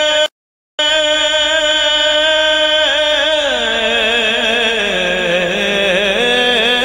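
A man's voice chanting a naat: a long held note, then the melody winding down in pitch with ornamented turns and rising again near the end. The sound cuts out completely for about half a second near the start.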